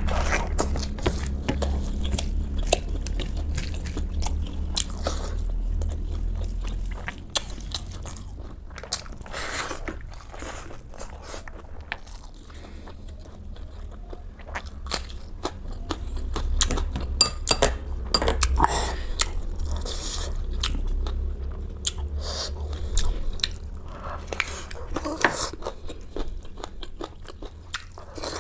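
Close-miked chewing and crunching of food, with many sharp, irregular biting clicks over a low rumble.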